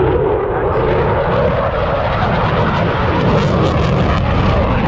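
Eurofighter Typhoon fighter jet flying a display pass: loud, steady jet engine noise from its twin turbofans, with a tone that sinks slightly in the first second and a crackle that grows from about three seconds in.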